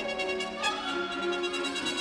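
Background music with held notes, changing chord about half a second in.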